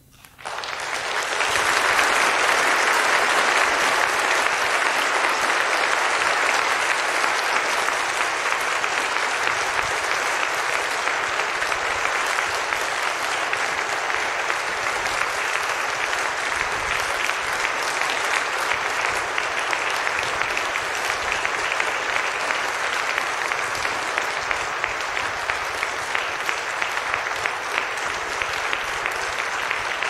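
Audience applauding in a concert hall, breaking out abruptly just after a silence, swelling within a couple of seconds and then continuing steadily.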